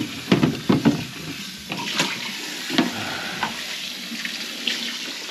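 Irregular knocks and wet scraping from clearing grease and food debris out of a plugged kitchen sink drain.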